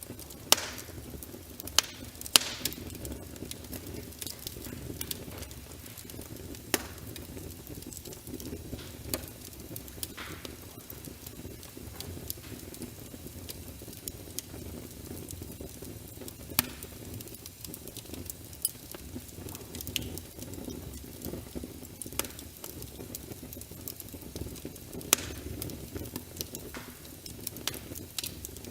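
Wood fire crackling in a fireplace: sharp, irregular pops and snaps every second or two over a low, steady rush of flames.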